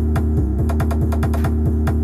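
Electronic dance music with a heavy bass line and a fast, steady beat.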